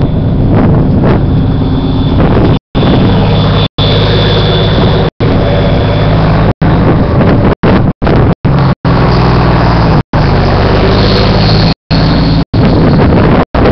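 Off-road rally pickup's engine running steadily at idle, a low even drone with a faint high whine over it in the first half. The sound cuts out briefly several times.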